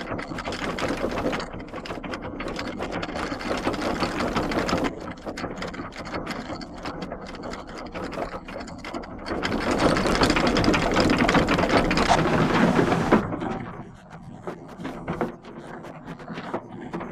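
Water-powered sawmill machinery running: the drive gearing and the reciprocating saw gate clatter with rapid, continuous knocking over a rushing noise. The rush swells louder for about three seconds past the middle.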